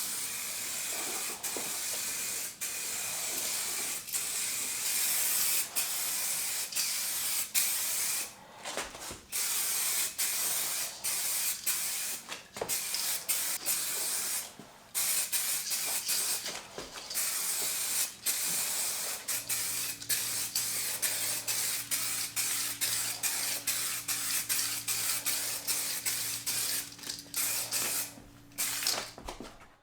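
Paint spray gun spraying clear coat in repeated bursts: a high hiss that stops and starts as the trigger is pulled and released. A low steady hum runs underneath for the last third.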